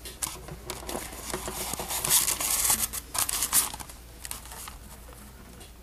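Dry crackling, crinkling rustle close to the microphone, made of many small clicks. It is loudest from about two to three and a half seconds in and dies away before four seconds.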